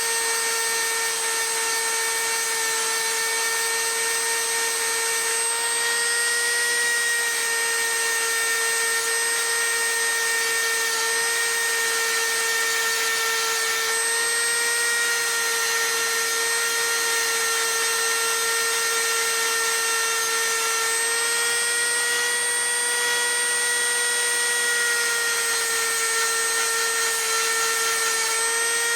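A power tool's electric motor running steadily with a high whine while sharpening hedge trimmer blades. Its pitch sags and rises slightly now and then, over a faint grinding hiss.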